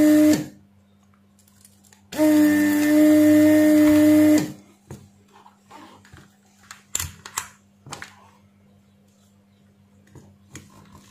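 Vacuum pump of a Weller desoldering gun running in two steady humming bursts, the first cutting off just after the start and the second lasting about two seconds, sucking the solder off the leads of a burnt-open fuse resistor. Light clicks and taps follow as the part is handled.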